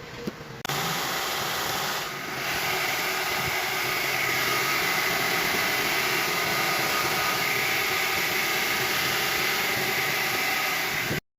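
Nissan Serena C27 engine running steadily with the new drive belt fitted, a steady even whirring noise that starts suddenly about a second in and cuts off abruptly near the end.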